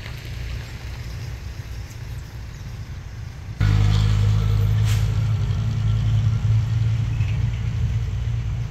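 Steady low rumble of idling engines on an airport apron. About three and a half seconds in it jumps suddenly louder to a steady low engine hum.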